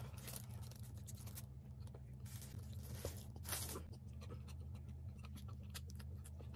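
Close-miked eating: small clicks and crackles of chewing and of fingers working through a plate of biryani rice, over a steady low hum. A short breathy hiss about three and a half seconds in.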